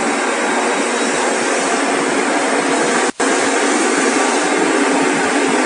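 Bench grinder running with a small steel part held against its wheel: a steady, loud grinding hiss as the steelyard's head is ground to shape. It breaks off for an instant about three seconds in.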